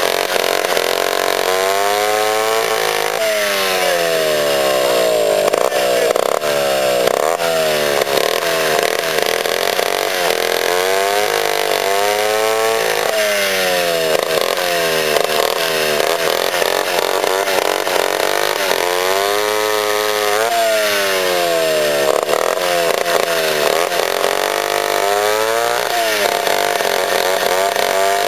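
Poulan B100 two-stroke bow-bar chainsaw cutting through a log at working speed. Its engine pitch falls and rises again and again as it works through the cut.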